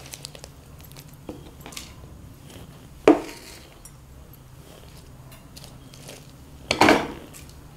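Raw shell-on prawns dropped by the handful into an unglazed clay pot: two loud clattering landings, one about three seconds in and a quick double one near the end, with light clicks of handling in between.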